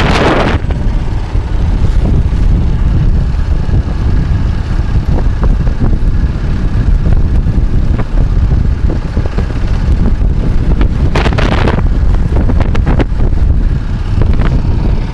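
Strong wind buffeting the phone's microphone over a small boat's Branco 6.5 hp longtail outboard motor running steadily. A brief louder rush of noise comes about eleven seconds in.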